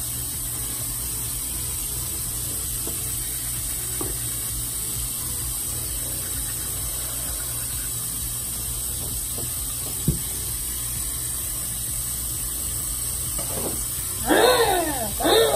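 Teeth being brushed with an electric toothbrush over a steady background hum. Near the end the brusher leans over the sink to spit, with a few loud gurgling vocal sounds that fall in pitch.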